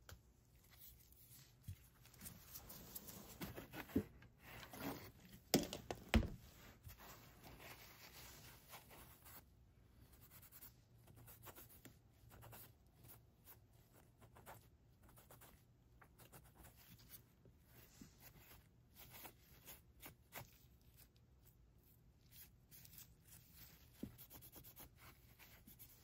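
Faint hobby-bench handling sounds: light scratching and rubbing with small clicks and taps, busiest in the first quarter with a few sharper knocks about 4 to 6 seconds in, then sparse small clicks.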